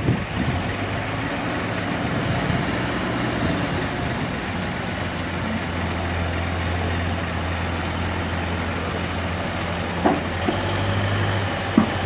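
Cat 426F2 backhoe loader's diesel engine running under load as the machine climbs the ramps onto a lowboy trailer, a steady drone. Two short knocks come near the end.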